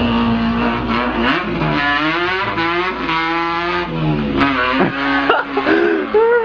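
A man's voice imitating an import car's engine, mouth-made. It holds a steady note for about a second, then revs up and down in wavering sweeps like gear changes, and ends in a few short rising blips.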